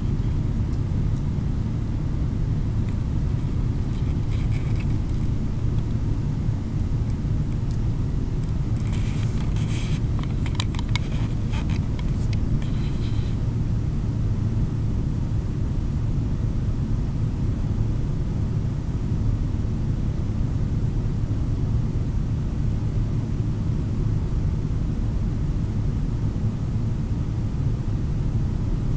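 Steady low rumble with a constant hum. A short run of soft clicks comes about nine seconds in and lasts a few seconds.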